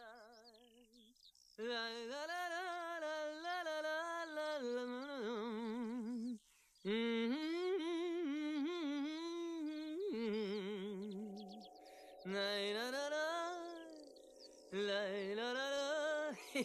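A voice-like melody hummed in several phrases, wavering with strong vibrato, with short breaks between the phrases.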